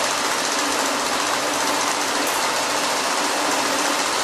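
NCL 7100 banknote counting machine running a count: a steady whir with a rapid flutter as the notes are fed through one by one.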